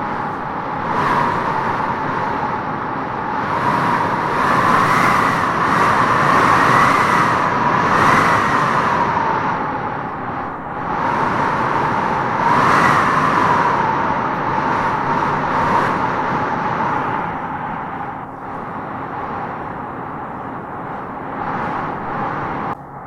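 Wind gusting through trees with a howling, whistling tone that swells and eases with each gust. The sound drops suddenly just before the end.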